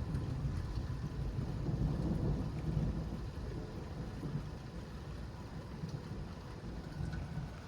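Thunder rumbling low, swelling about two seconds in and then slowly dying away.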